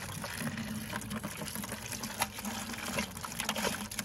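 Liquid coolant system cleaner pouring from a plastic bottle into a plastic bucket: a steady splashing stream with small irregular splashes throughout.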